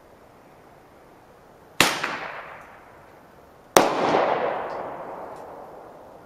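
Two gunshots about two seconds apart, each ringing out in a long echoing decay; the second is the louder.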